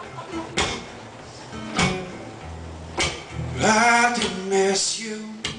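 Acoustic guitar strummed in a live song intro, with a few sharp strums, then a male voice singing a short line about three and a half seconds in.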